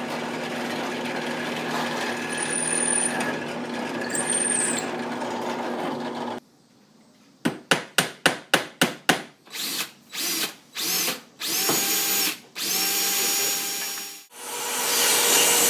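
Power drill in use on wood: a steady run, then a sudden stop. A quick series of about eight short pulses follows, then several short trigger bursts that rise in pitch as the motor spins up, and another steady run near the end.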